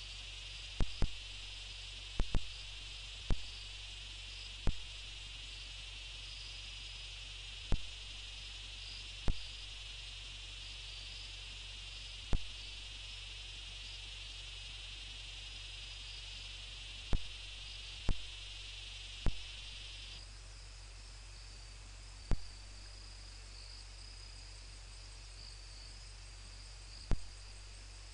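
Night insect chorus of crickets: a steady shrill trill, with one of the callers stopping abruptly about two-thirds of the way through while a higher, fainter trill goes on. Sharp, loud clicks come at irregular intervals over a steady low hum.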